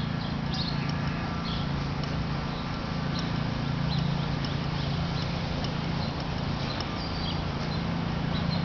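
Outdoor ambience: a steady low rumble, with short high chirps scattered throughout.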